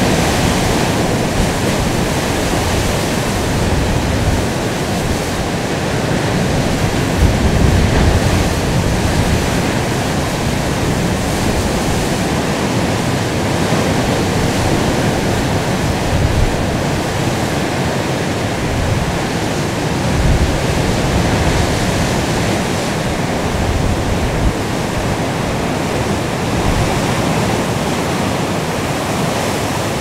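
Rough sea: waves breaking and surf rushing in a steady, dense wash of sound, with gusts of wind on the microphone rising and falling underneath.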